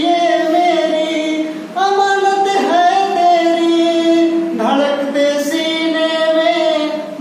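A man singing a Hindi song unaccompanied, drawing out long held notes that change pitch every second or two.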